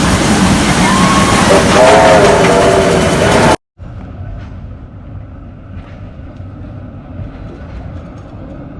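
Suburban train passing close, loud, sounding its horn: a short note about a second in, then a longer chord of several pitches. The sound cuts off abruptly about three and a half seconds in, followed by a much quieter steady background hum.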